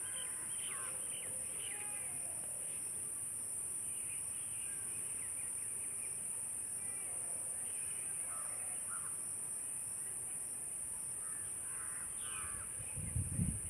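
Several birds calling off and on in short, repeated calls over a steady high hiss, with a couple of low thumps near the end.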